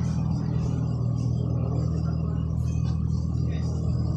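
A motor vehicle's engine running steadily at idle: an unbroken low drone.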